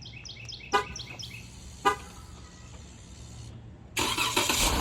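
Remote start of a 2015 Jeep Grand Cherokee: two short horn chirps about a second apart, then the engine cranks and catches about four seconds in, settling into a steady run.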